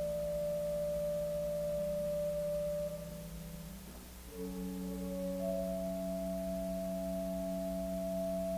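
Church organ playing soft, sustained chords on a mellow flute-like stop. The chord dies away about three to four seconds in and a new, higher chord sounds just after.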